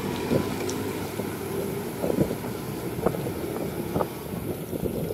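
Wind buffeting the microphone and road rumble while riding along a concrete road, with a few sharp knocks a second or so apart.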